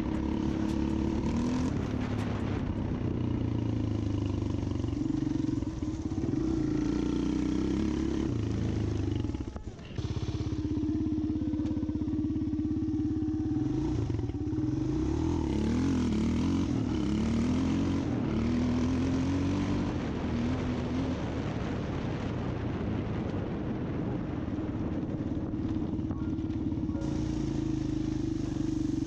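A motor vehicle engine running steadily, its pitch wavering up and down as it is worked, with a short dip in level about ten seconds in.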